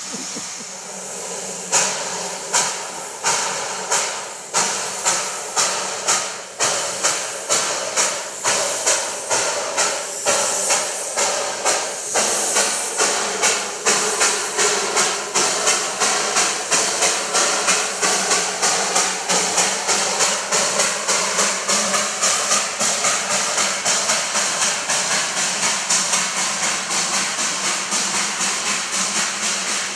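Darjeeling Himalayan Railway B-class saddle-tank steam locomotive pulling away with a train. A hiss of steam comes first. About two seconds in, sharp exhaust chuffs begin and quicken steadily from about one and a half to about three a second as it gathers speed.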